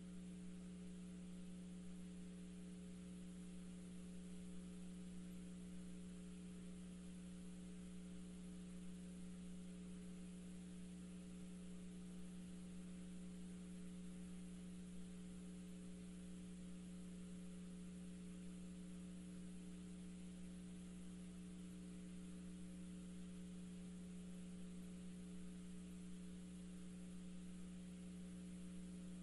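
Steady low electrical hum with a faint even hiss and nothing else: an idle audio line.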